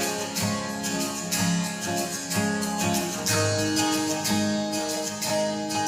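Instrumental break in a song with no singing: acoustic guitar strumming chords in a steady rhythm.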